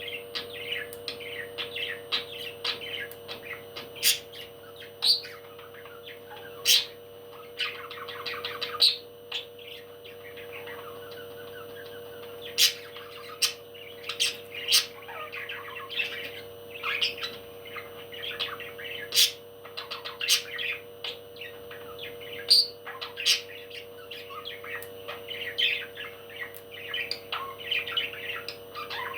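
A pet parrot chirping almost without pause, with frequent short, sharp high calls, over a steady low hum.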